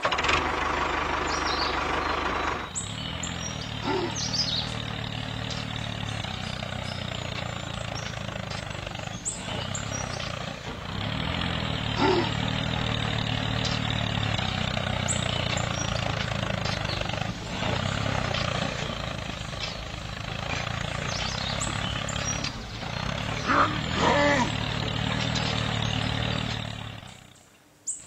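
Tractor diesel engine running steadily with a low chugging rhythm, with a few short chirps over it, fading out near the end.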